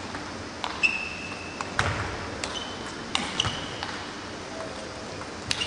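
Table tennis rally: the celluloid ball clicking sharply off the rackets and the table, about nine clicks spaced unevenly, often in quick pairs. Several of the clicks carry a brief high ring.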